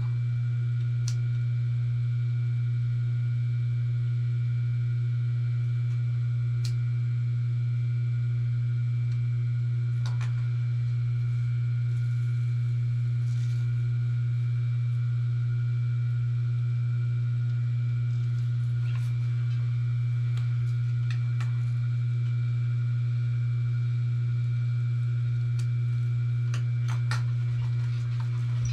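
Steady electric motor hum: one low, unchanging drone with a few faint clicks scattered through it.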